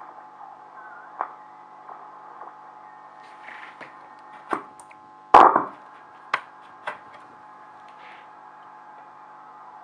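VE301W Volksempfänger valve radio being tuned: its loudspeaker gives a steady hum, broken by a dozen or so sharp crackles and clicks. The loudest crackle comes about five and a half seconds in and trails off briefly.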